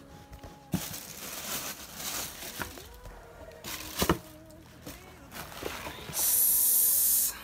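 Tissue paper rustling and crinkling as it is pulled back from a pair of sneakers in a shoebox, with a few sharp clicks and taps. Near the end comes a loud, steady hiss lasting about a second that cuts off suddenly.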